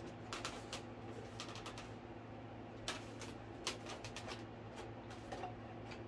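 Light, irregular clicks, taps and rustles of a foam and plastic RC model airplane being handled as its fuselage is fitted down onto the wing, over a faint steady low hum.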